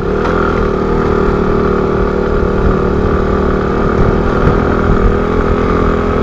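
Motorcycle engine running at steady revs while riding.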